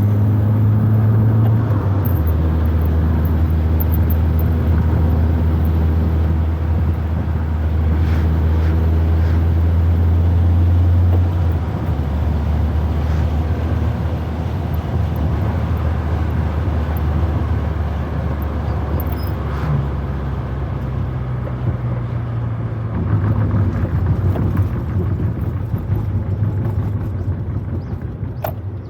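Proton Wira 1.5's four-cylinder engine running steadily under way, heard from inside the car, its low drone shifting down in pitch and level about a third of the way in and rising again a few times later.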